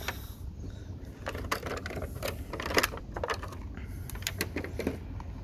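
Clear plastic packaging tray and cardboard box being handled, giving irregular sharp clicks and crackles, the loudest a little under three seconds in.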